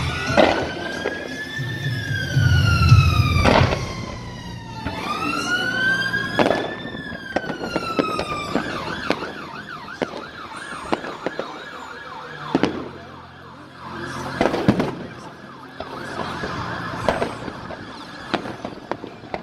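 Fireworks going off in sharp bangs, with a deep boom about three seconds in as the loudest burst, under an emergency-vehicle siren that wails slowly up and down and then switches to a fast warbling yelp a little after eight seconds in.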